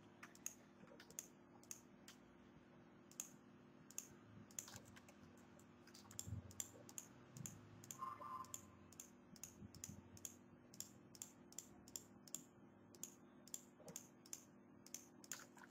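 Faint, irregular clicks of a computer mouse and keyboard, coming more often in the second half, over a faint steady hum.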